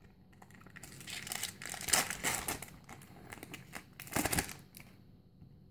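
Foil Pokémon TCG booster pack wrapper being crinkled and torn open by hand, in a run of crackling bursts with the loudest near two seconds in and again about four seconds in.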